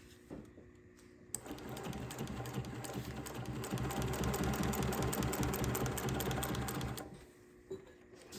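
SEWPRO 8360B post-bed sewing machine stitching through four layers of leather: it starts about a second in with a rapid, even run of needle strokes, grows louder partway through, and stops abruptly about a second before the end. A couple of small clicks follow.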